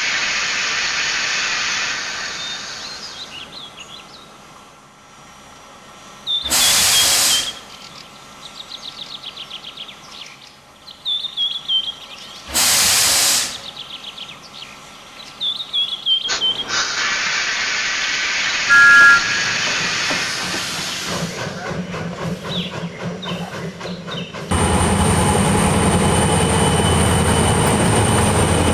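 Steam locomotive sound effects: steam hissing that fades out, then two short loud blasts of steam about six seconds apart, with small falling brake squeals in between. Another hiss follows, and about three-quarters of the way in a loud steady low rumble starts.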